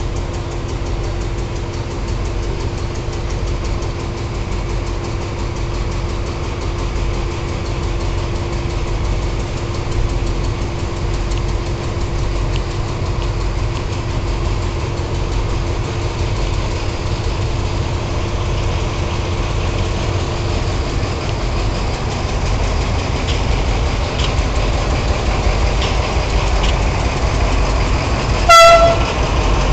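Passenger train rolling by at close range with a steady low rumble. Near the end there is one short, loud toot of the horn on a TCDD DE 24000-class diesel locomotive.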